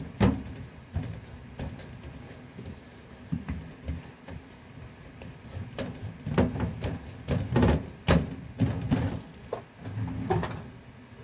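Hands pressing and patting a raisin bread dough flat on a baking tray: an irregular series of dull thumps and knocks, busiest from about six to nine seconds in.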